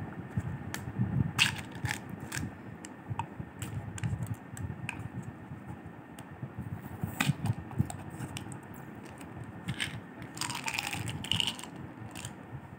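Foil seal being peeled by hand off the mouth of a plastic tablet bottle: scattered crinkles and clicks, with a longer crackling burst about ten seconds in.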